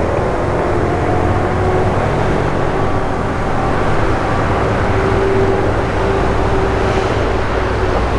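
Steady outdoor din: a low rumble of traffic with a faint murmur of people around.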